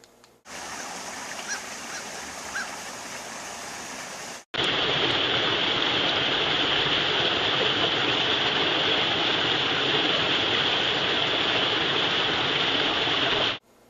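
Creek water rushing over a small cascade, a steady, even rush. About four and a half seconds in it cuts abruptly to a louder, brighter rush that holds steady, then stops suddenly near the end.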